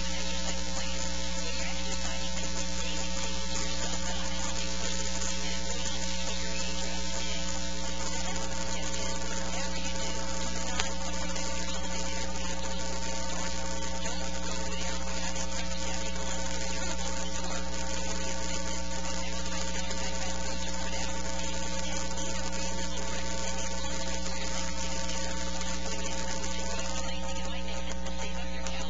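Steady electrical hum and buzz from the church's sound and recording system, with hiss and no program audio. It holds a constant level throughout, with one faint click about eleven seconds in.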